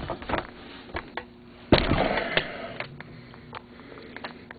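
Snowmobile engine parts being handled during a rebuild: scattered metal clicks and knocks, with one loud clank a little under two seconds in and a short scrape after it.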